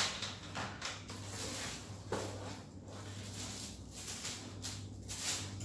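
Crinkly plastic packaging rustling in irregular bursts as a ring light is lifted out of its cardboard box and handled, with a sharp knock at the start. A low steady hum runs underneath.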